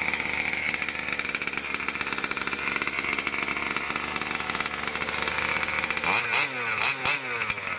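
Small two-stroke petrol engine of a 1/5-scale Losi 5T RC truck running after starting, with a steady buzzing idle. About six seconds in, the throttle is blipped and the engine revs up and down a few times, on a test run after the truck was washed.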